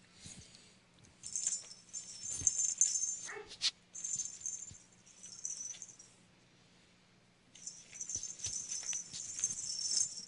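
Small bells and shiny fabric of a kitten's jester costume jingling and rustling in three bouts as the kitten rolls, kicks and bites at it, with a short rising squeak about three and a half seconds in.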